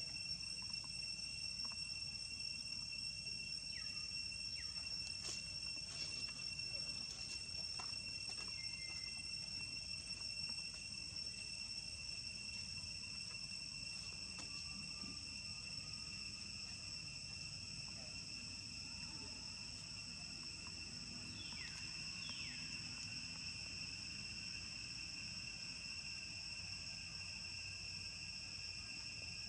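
Insects droning with a steady high-pitched tone over a low rumble of background noise. A few faint chirps sound in the first ten seconds, and two short falling calls come about three quarters of the way through.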